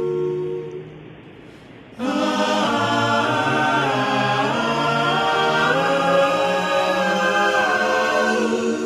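Wordless a cappella voices singing in close multi-part harmony. They enter about two seconds in, after a held chord fades away, and hold slowly shifting, gliding chords.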